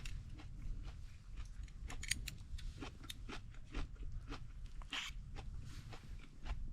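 A person chewing and biting crunchy food, with irregular crisp crunches, over a steady low rumble.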